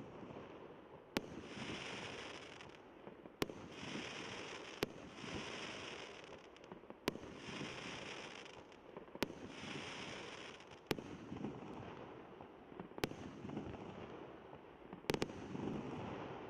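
Fireworks going off: a sharp bang about every two seconds, most followed by a second or so of hissing crackle, with a double bang near the end.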